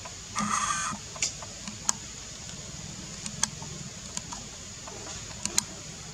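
A short high-pitched animal squeal about half a second in, followed by scattered sharp clicks and ticks over a steady hiss.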